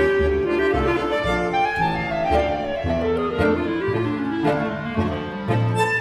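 Small ensemble of clarinets, bandoneon and bowed double bass playing, the bass stepping from note to note under sustained melody lines.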